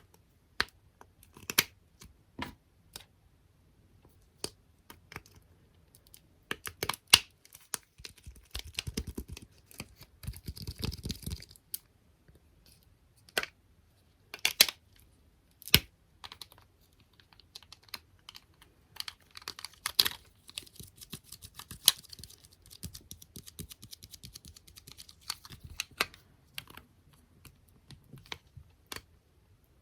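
Close-miked ASMR tapping on small objects such as squishy toys, stickers and plastic clips: irregular sharp taps, a denser scratchy flurry about a third of the way in, and a fast run of light taps past the middle.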